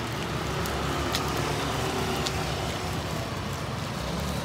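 Street traffic: a steady low rumble of passing cars and motorbikes.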